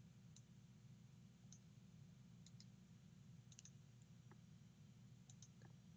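Faint computer mouse clicks, a few scattered single and double clicks, over near-silent room tone with a low steady hum.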